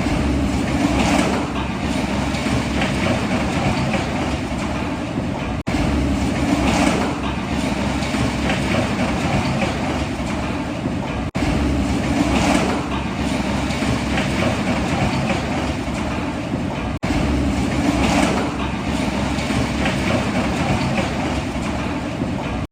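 Steady mechanical running noise like a vehicle's, with no clear pitch. It is a loop that repeats about every six seconds, cutting out for an instant between repeats.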